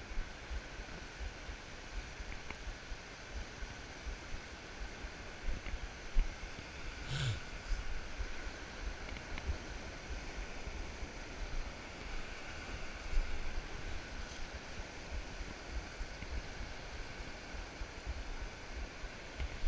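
Wind buffeting the microphone over the steady wash of surf on a beach. A faint high tone holds throughout, and a brief low sound comes about seven seconds in.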